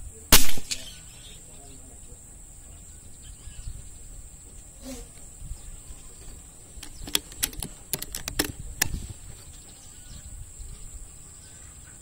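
A single air-rifle shot about a third of a second in, sharp and loud with a short tail. Later comes a run of sharp clicks between about seven and nine seconds in, over a steady high insect drone.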